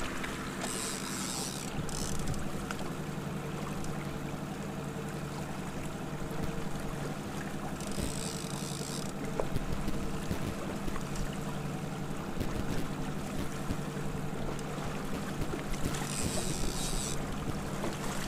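Boat's outboard engine running steadily at trolling speed, with wind and water noise. Three short bursts of hiss about a second, eight seconds and sixteen seconds in.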